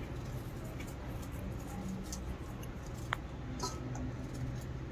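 Fingers raking through dry wheat flour and spices in a stainless steel bowl: faint scratchy rustling, with a light click about three seconds in, over a low steady hum.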